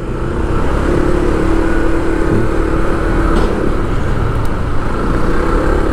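Road vehicle running steadily while travelling, a constant engine and road hum with a steady droning tone held for about three seconds.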